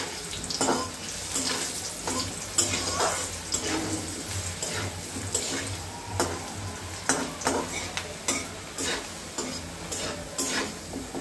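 Potato chunks frying in oil in a metal wok, sizzling steadily, while a metal spatula stirs and scrapes them against the pan with irregular strokes about every second.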